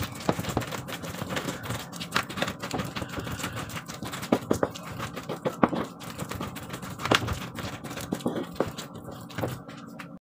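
Wooden pestle grinding thick peanut sauce (ketoprak sauce of peanuts, chili, garlic and palm sugar) in a wooden mortar. It makes continuous scraping with irregular sharp knocks of the pestle against the mortar.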